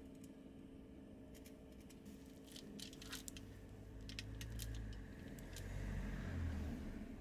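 Faint small clicks and crinkles of wooden chopsticks against aluminium foil as a gimbap slice is lifted off the foil. A low rumble swells in the second half.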